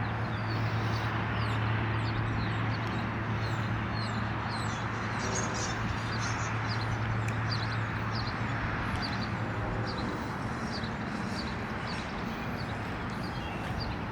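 Small birds chirping over and over, short high chirps a few times a second, over steady outdoor noise and a low hum that fades out about two-thirds of the way through.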